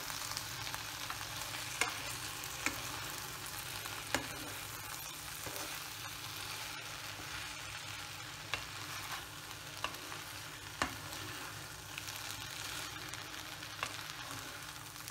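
Aviyal vegetables and ground coconut sizzling softly in a non-stick pan over a small flame while a wooden spatula stirs them, with a handful of sharp taps of the spatula against the pan.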